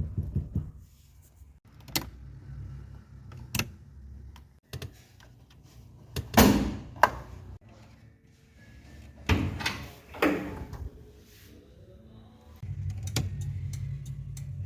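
1982 Volkswagen Voyage LS car doors being worked: small clicks of the latch and handle, then two pairs of loud door thunks and slams about six and nine seconds in. Near the end a steady low running sound starts, with regular ticking over it.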